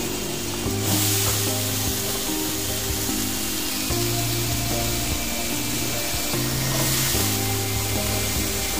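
Background music over the sizzle of cauliflower florets frying in a kadai of onion masala; the sizzle grows louder about a second in as the florets go into the hot oil and are stirred.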